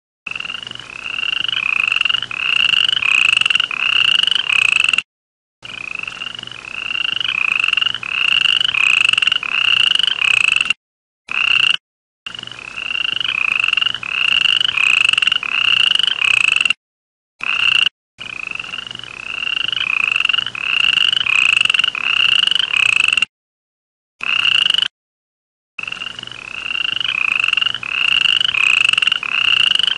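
A toad calling: a string of short, rising chirp-like notes at about two a second, in runs of about five seconds broken by abrupt gaps of silence.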